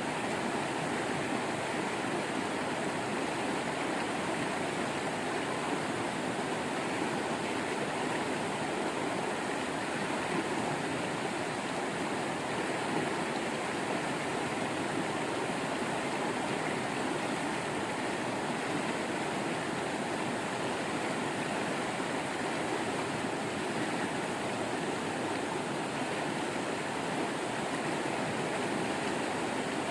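Waterfall running: a steady, even rush of falling water with no breaks.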